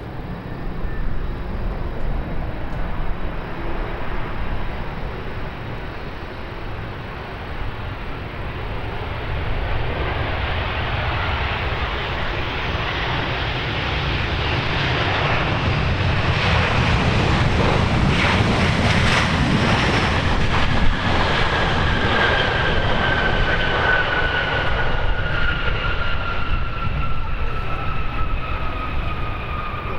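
Boeing 737-800's jet engines on landing approach: a rushing engine noise builds to a peak a little past the middle as the airliner passes, then its whine falls steadily in pitch as it moves away. Low wind rumble on the microphone underneath.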